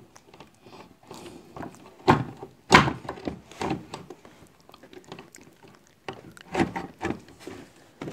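BenQ GW2480 monitor being fitted onto its stand's steel rods: a series of hard knocks and clunks of the parts meeting. The loudest two come about two and three seconds in, with another pair near the end.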